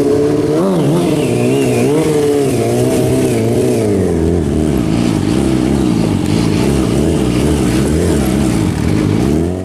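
Large motorcycle engine running and revving, its pitch wavering up and down. It starts abruptly.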